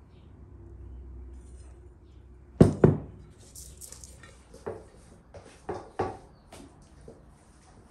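Kitchen handling sounds: two sharp knocks about two and a half seconds in, then a run of lighter knocks, clicks and rubbing as hands work oil into a whole chicken in an enamel bowl.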